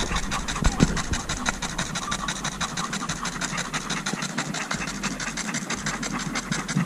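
Three dogs, a Giant Schnauzer, a French bulldog and a golden retriever, panting hard with fast, overlapping breaths, out of breath after a long spell of play.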